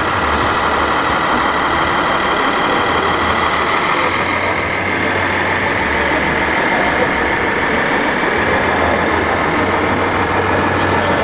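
Scale RC heavy-haulage truck driving slowly with a trailer in tow: a steady truck-engine sound with a faint whine that rises slowly in pitch.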